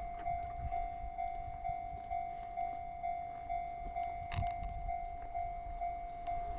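Japanese railway level crossing's electronic warning bell ringing, a steady pitched tone repeating about twice a second. A single sharp click sounds about halfway through.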